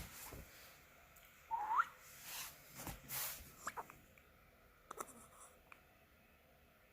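Newborn baby hiccupping: a handful of short, sudden hics, the strongest right at the start, with a brief rising squeak about a second and a half in.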